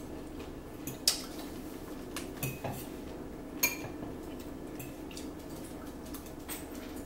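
Metal forks clinking and scraping against ceramic salad bowls, with a few sharp clinks, the loudest about a second in, over a steady low hum.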